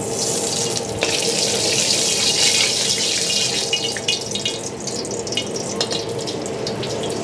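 Cooking oil hissing and crackling as it heats in a stainless steel wok over a high gas flame. The hiss starts as soon as the oil goes in and eases a little over the last few seconds.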